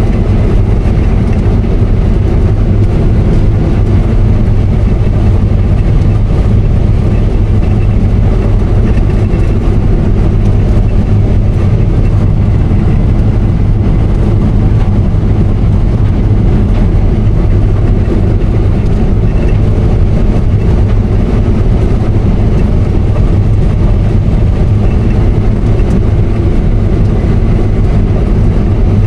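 Case IH 8120 combine running steadily under load while cutting wheat: a constant, loud engine and machine drone with a strong low hum.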